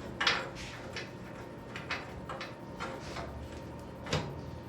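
Irregular clicks and light knocks of metal parts being handled and adjusted, with two louder knocks: one just after the start and one about four seconds in.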